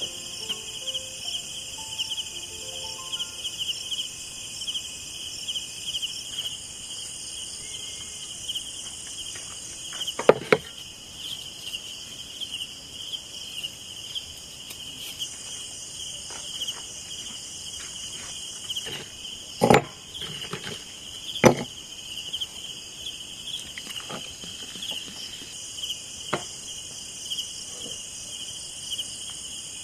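Steady, pulsing chorus of crickets or similar insects. A few sharp knocks cut across it: one about ten seconds in and two more around twenty seconds in.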